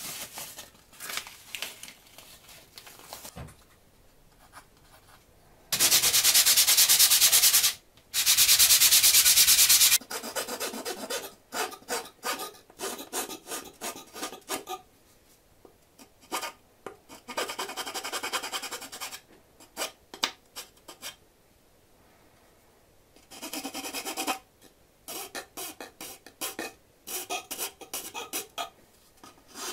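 Small wooden-handled file rasping in the slot of a thin wooden part, in bursts of short strokes. About six seconds in come two longer, louder spells of fast scraping, each about two seconds long.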